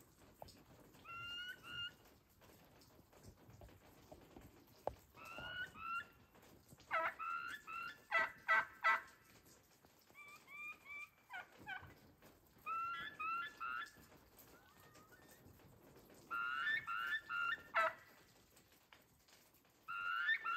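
A flock of wild turkeys calling in about seven short bouts of quick, high-pitched notes, with a few sharp clicks mixed in near the middle.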